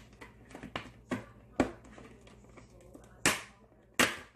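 Sharp snaps and clicks from hands working plastic packaging: a few light clicks in the first second and a half, then two loud snaps less than a second apart near the end.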